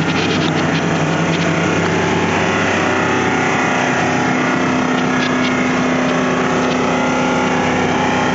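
Diesel engine of a Cat 313DL excavator running steadily, its pitch shifting higher about halfway through.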